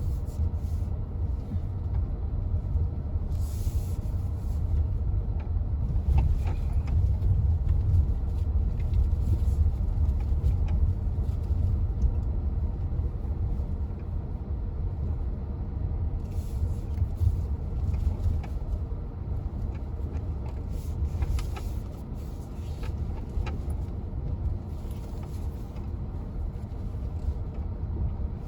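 MG HS SUV on the move: a steady low rumble, with scattered small knocks and rattles.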